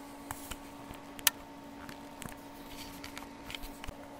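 Scattered small clicks and taps, one sharper about a second in, over a faint steady electrical hum: bench equipment being handled, switches and knobs worked as the scope input is changed over to a square wave.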